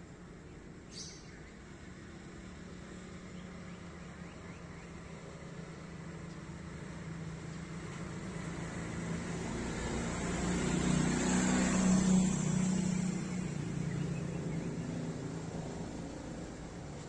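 A single road vehicle approaching, with engine and tyre noise growing steadily louder, passing closest about two-thirds of the way through and then fading away.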